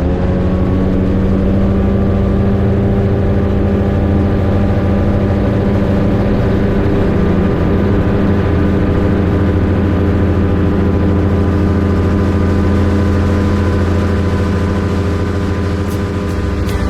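Rotax 582 two-stroke twin engine and propeller of an X'Air microlight running steadily at high power for take-off.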